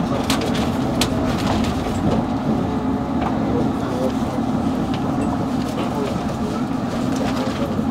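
Inside a London Underground Metropolitan line train running between stations: a steady rumble of wheels and traction equipment, with a few sharp clicks and rattles in the first second or so.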